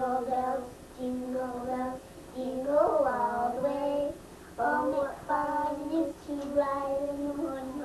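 Two young girls singing a Christmas carol together, in phrases of long held notes with short breaks between them.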